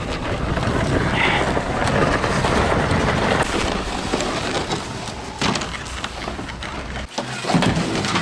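Wooden coffin dragged on a rope over snow and sand, a steady scraping rasp. Near the end it changes to a few knocks as the coffin is carried through a doorway.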